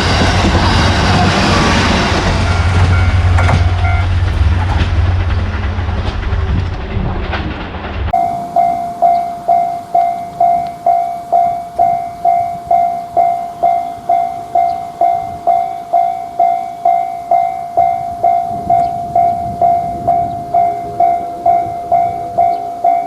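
A train runs past a level crossing, loud and rumbling. About eight seconds in it cuts off, and a Japanese railroad crossing bell takes over, ringing its steady 'kan-kan' at about one and a half strikes a second.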